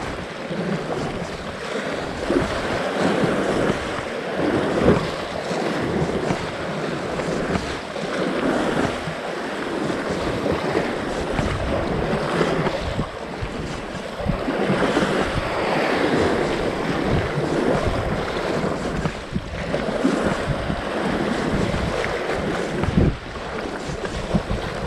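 Sea waves washing against a rocky shore, rising and falling in surges, with wind buffeting the microphone.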